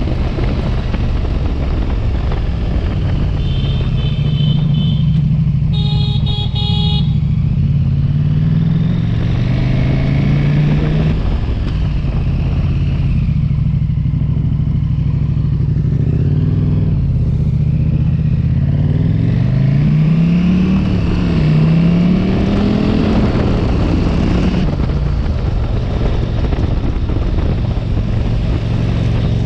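Motorcycle engine running while riding, its pitch climbing and dropping several times as it speeds up and shifts, with wind noise on the microphone. A horn sounds twice briefly, about four and six seconds in.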